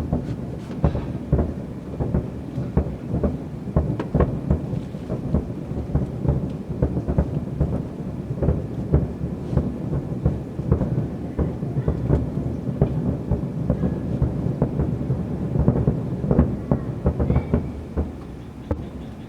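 Fireworks bursting in a dense, continuous barrage of deep booms, several a second, with rumble between them; it dies down shortly before the end.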